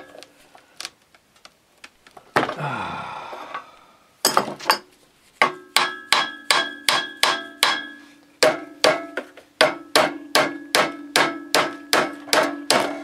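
Hammer striking a steel gear puller clamped on a small engine's rusty shaft, to shock loose a part seized on it. A few scattered knocks give way, about five seconds in, to steady strikes two or three a second, each one ringing.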